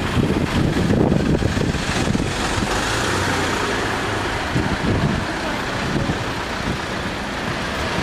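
Road traffic at a level crossing: cars driving slowly past, engines running and tyres rolling. A steady hiss grows louder about two seconds in.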